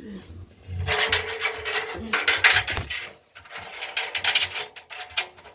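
Scraping and rubbing in two stretches, dotted with small clicks, as something is handled or moved about.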